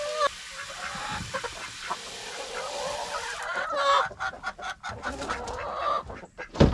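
Hens clucking while water from a garden hose hisses into a galvanized metal chicken waterer; the water cuts off suddenly about three and a half seconds in, and the clucking goes on with light clicks and one loud knock near the end.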